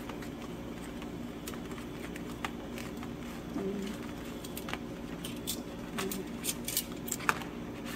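A banana leaf being warmed over a gas burner in metal tongs: scattered light clicks and crackles over a steady low hum, the clicks coming more often in the second half.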